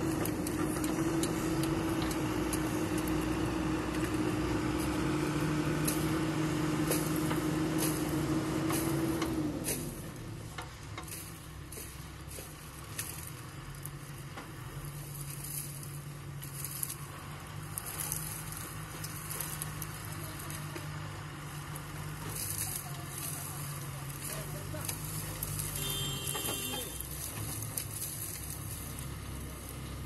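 Diesel engine of a JCB 3DX backhoe loader running hard at high revs while digging, its note falling away about nine or ten seconds in to a lower, quieter steady run, with the dump truck's diesel running as well. A short high tone sounds near the end.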